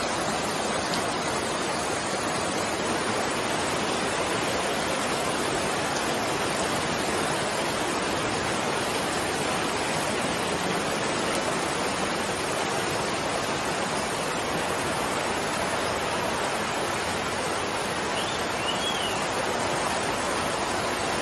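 Floodwater rushing steadily across a paved street, a constant even rush of water.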